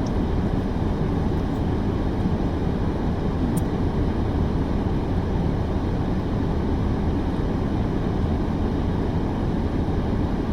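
A steady low rumble with a fainter hiss above it, unchanging throughout: the background noise of a running vehicle.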